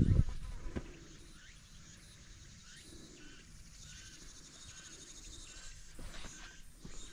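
A thump at the start, then insects buzzing and a bird chirping several times in short calls, with more knocks near the end.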